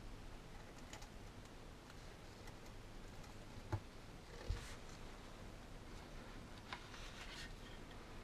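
Quiet handling of small objects: faint scattered clicks and rustles, with two short sharp knocks a little under a second apart near the middle.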